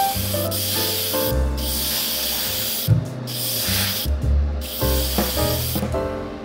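Paint spray hissing in several long bursts with short breaks between them, stopping near the end, over background music.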